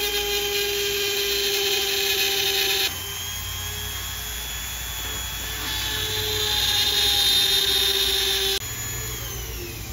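Flexible-shaft rotary tool (micro-drill) running at high speed with a steady whine as its bit is worked against cracked windshield glass. The whine drops about three seconds in, climbs again around six seconds, and falls in pitch near the end as the tool slows.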